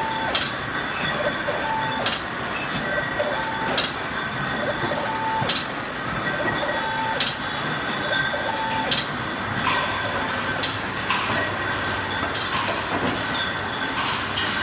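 Wine bottling and labelling line running: a steady machine whine, with a sharp click and a short tone repeating about every 1.7 seconds. From about ten seconds in, faster, irregular clinks and clatter follow as the line carries the bottles along.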